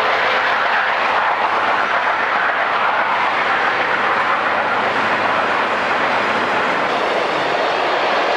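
Freight train passing close by: diesel locomotives working under load, then freight cars rolling past with wheel clatter on the rails.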